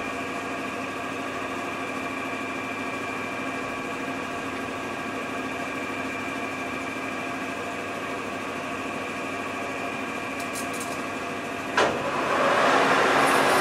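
Metal lathe running with a steady hum made of several pitched tones while its chuck stands still. About twelve seconds in there is a clunk as the spindle is engaged, and the chuck spins up with a louder, rushing gear noise from the headstock.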